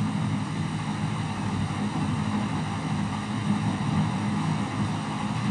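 A steady low drone of background machine noise, like a motor or fan running, with no speech over it.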